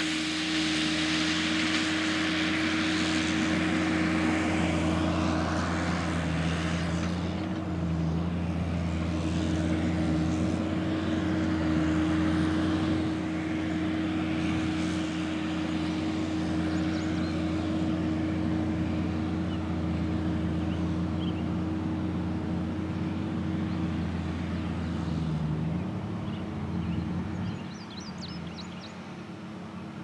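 John Deere 333D tracked skid steer's diesel engine running steadily at an even pitch, getting quieter near the end.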